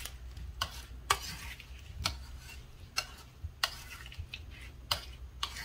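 Plastic spoon tossing diced green mango in a bowl, with sharp clicks about every half second to a second as the spoon knocks against the bowl, and wet stirring between.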